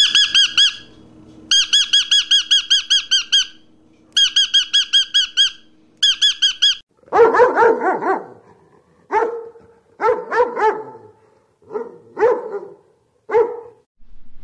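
A bird giving rapid high-pitched squeaky chirps in four quick bursts, then a German Shepherd dog barking several times with short gaps between the barks.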